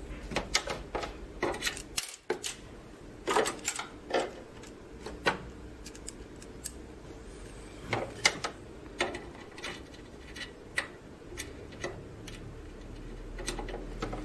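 A screwdriver turning a screw in a wide-format printer's metal frame: irregular clicks and short metallic scrapes as the blade seats and the screw turns.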